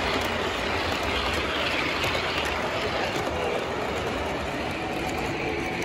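Model trains running on a layout: a steady rolling rumble of wheels on track, with a light clickety-clack over the rail joints.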